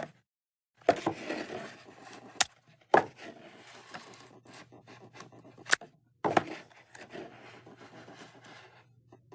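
Cooking gear being handled: scattered knocks and clicks with soft scraping between them, the sharpest knocks about 1, 3 and 6 seconds in.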